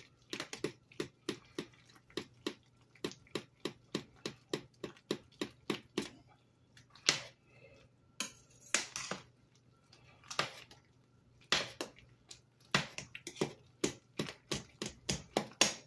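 A metal spoon stirring thick chicken-and-dumpling gravy in a stainless steel pot, knocking against the pot's side and bottom about two to three times a second, with a few longer scrapes along the pot in the middle.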